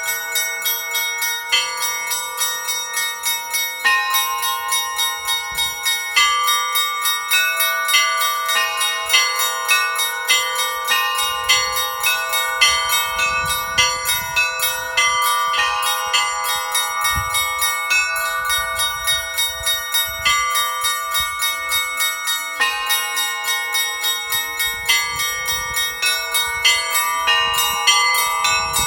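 Russian Orthodox church bells rung by a bell-ringer: quick repeated strikes on the small bells, about three a second, over the long-ringing tones of the larger bells, all blending into one continuous peal.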